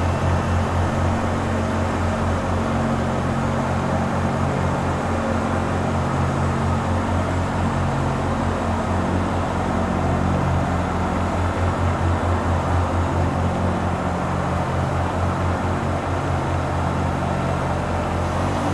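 Zamboni ice resurfacer running steadily: a low engine drone with a fast, even pulse and a constant mechanical hum over it.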